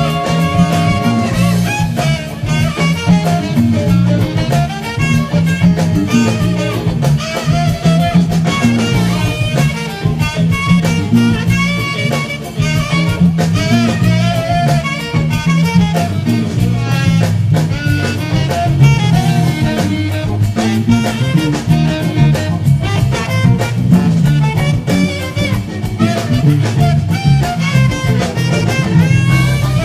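Funk band recording with drums and horns, with an electric bass guitar playing a busy, syncopated funk bass line along with it.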